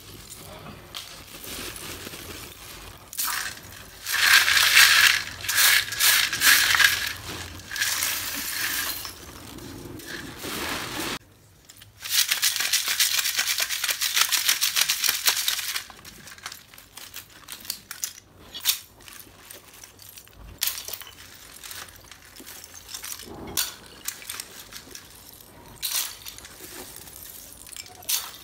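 Brittle chips of roasted multani mitti (Fuller's earth) rattling and clinking in a steel sieve as it is shaken, with a few seconds of dense, rapid rattling about halfway through and scattered clinks of chips being handled before and after.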